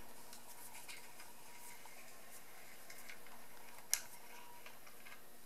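An old head bolt with slits cut into it, turned by hand in a head bolt hole of an aluminium Saturn S-Series engine block to chase and clean the threads: faint scattered metal ticks and scrapes, with one sharper click about four seconds in.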